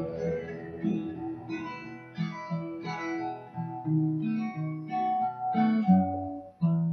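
Acoustic guitar played alone: a short instrumental run of picked single notes and chords with a bass line underneath.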